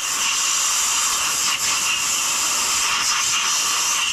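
Compressed-air blow gun giving a steady, loud hiss of air, blowing brake-cleaner residue out of a freshly cleaned dirt-bike exhaust grommet.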